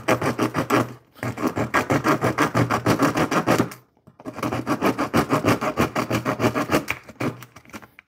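Small coarse saw blade of a Gerber Dual Force multi-tool sawing through the wooden base of a mousetrap in rapid back-and-forth strokes, a rasping cut through wood. The sawing pauses briefly about a second in and again around the middle, then resumes and trails off near the end.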